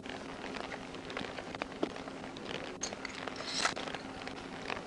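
Footsteps on pavement and clothing rustle picked up by a worn wireless microphone as an officer walks, with scattered crackles and a faint steady hum; a brief scrape about three and a half seconds in.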